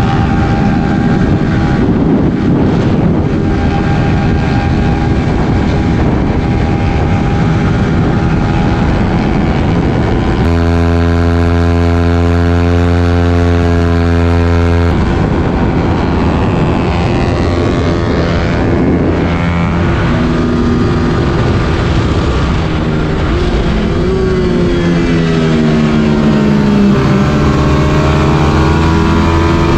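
Motorcycle engine running hard and revving, with a steady held note for a few seconds near the middle and a pitch that drops and climbs again near the end.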